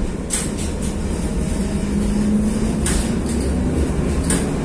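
Tram running, heard from inside the car: a steady low rumble with a faint hum that rises a little in pitch around the middle, and three sharp knocks or rattles.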